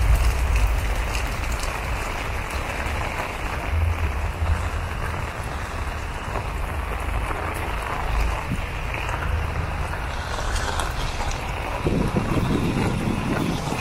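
Heavy rain falling steadily on wet paving, a constant hiss, with a low rumble of wind on the microphone.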